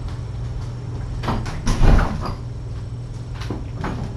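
A person moving about off camera: a few knocks and thumps, loudest about two seconds in, over a steady low hum.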